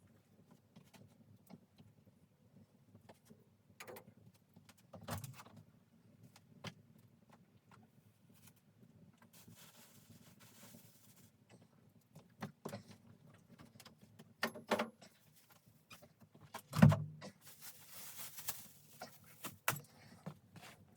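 Scattered clicks and knocks with short spells of rustling, and one loud thump about 17 seconds in.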